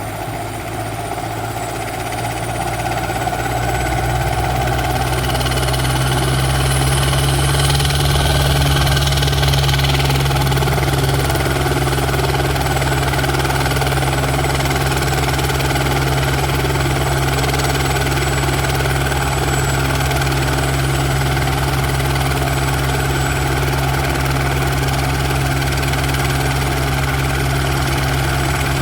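Medical air-ambulance helicopter running, its rotor and turbine giving a steady low drone with a thin high whine. It grows louder over the first several seconds, then holds steady.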